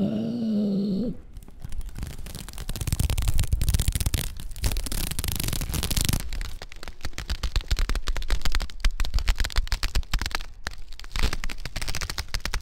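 Experimental animation soundtrack: a brief wavering pitched tone for about a second, then dense crackling and popping over a low rumble.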